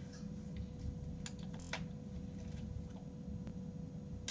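Bead-filled crunchy slime being scraped and worked out of its container, giving a few scattered small clicks and crackles over a steady low hum.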